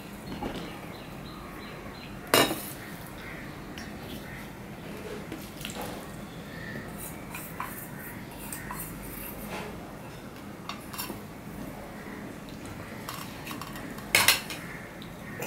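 Stainless steel bowls and plate clinking as curry is tipped from a steel bowl onto a steel plate of rice. There is one sharp clink about two seconds in and light clicks between. Near the end come two louder clinks as the bowl is set down on a stack of steel bowls.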